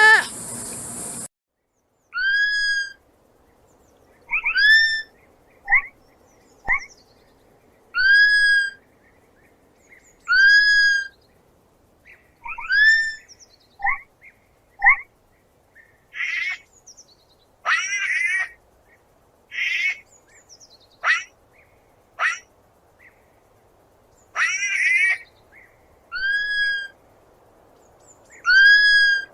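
Sloth calls: a run of short, high-pitched squeaking whistles, one every second or two, each rising and then levelling off. Shorter chirps and a few harsher, buzzier cries come in between.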